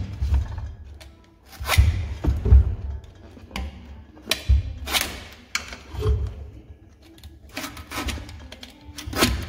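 Small blade cutting into the rubber bellows of a KYB air spring from a Lexus RX350 front air strut, in short irregular strokes every second or so, with low thuds as the strut is handled on the bench.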